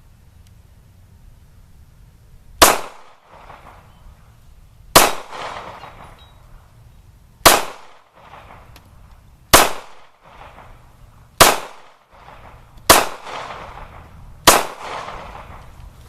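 Ruger LC9 9mm pistol firing seven hollow-point rounds in slow fire, roughly two seconds apart, each shot followed by a short echoing tail.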